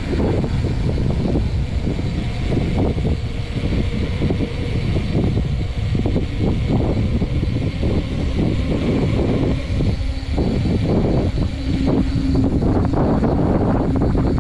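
Wind buffeting the microphone during a ride, a heavy low rumble that surges and fades throughout. A faint steady hum joins it after about ten seconds.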